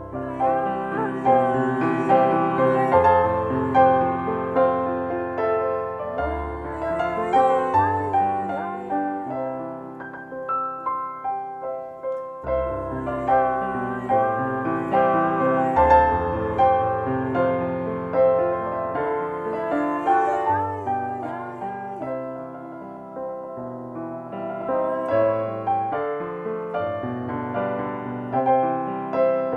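Electric keyboard playing a nigun melody with chords underneath.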